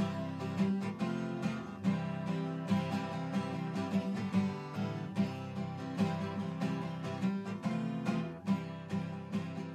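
Instrumental ending of the show's closing theme song: strummed acoustic guitar with a steady beat, starting to fade near the end.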